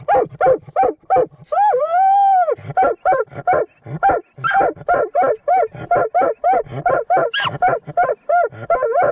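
Hunting dog barking rapidly and steadily, about three barks a second, with one long howl that rises and falls about two seconds in. This is the bay of a mink dog that has found its quarry.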